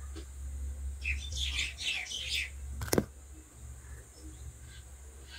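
Birds chirping, a quick run of high calls about a second in, then a single sharp knock near the middle, over a steady low hum.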